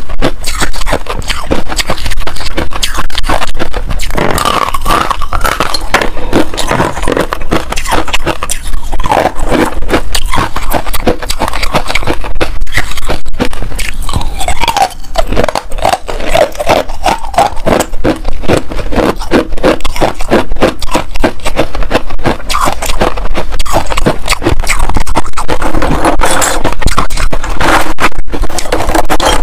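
Hard ice being bitten and chewed close to the microphone: dense, rapid cracking crunches with no pause.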